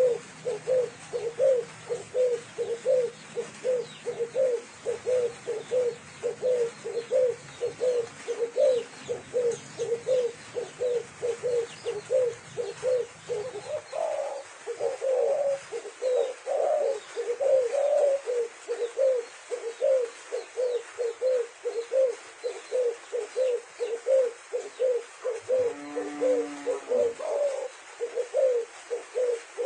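Spotted doves cooing in a fast, even run of short coos, about two to three a second, growing stronger for a few seconds midway. Near the end a longer, lower coo is heard. A faint low hum stops about halfway through.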